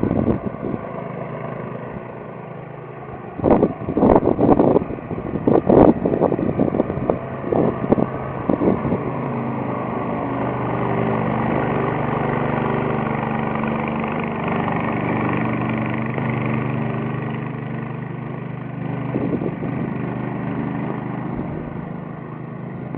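An engine running steadily, with a cluster of loud irregular thumps between about four and nine seconds in.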